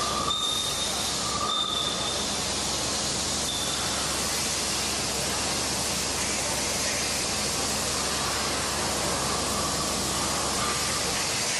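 Steady hissing machinery noise of an automated cold forging production line, with a few brief faint whistling tones in the first few seconds.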